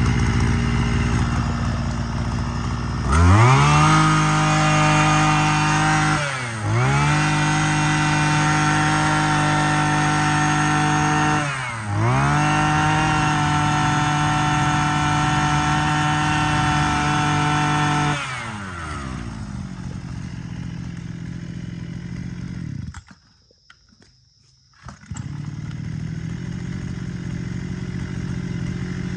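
Mitsubishi TL33 33cc two-stroke backpack brush cutter engine idling, then revved up to high speed three times, holding each rev for several seconds before dropping back. It settles back to idle, the sound drops away for about two seconds near the end, then idling resumes.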